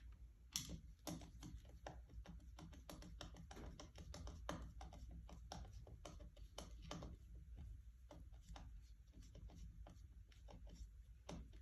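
Faint, irregular clicks and light knocks of hands working with tools and metal seat parts, several a second.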